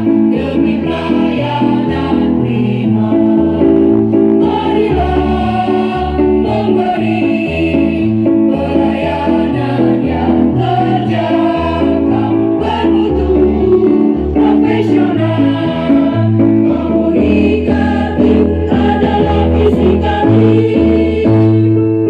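A choir singing in parts over a keyboard accompaniment with a steady bass pulse.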